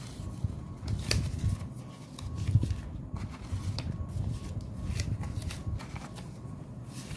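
Ringgit banknotes being counted by hand, flicked and rustled one after another, with a few sharp snaps of paper.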